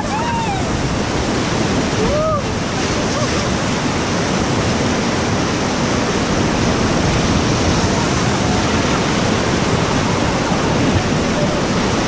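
Whitewater rapids rushing loud and steady around an inflatable raft. Two short raised voice calls cut through, one at the very start and one about two seconds in.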